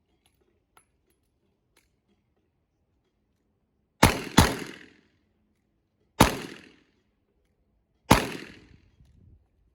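Four revolver shots with echoing tails: two in quick succession about four seconds in, then two single shots about two seconds apart.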